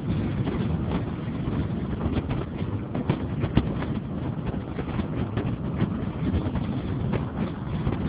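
A car driving along a road: steady engine and road noise with wind buffeting the microphone, and frequent short clicks and rattles.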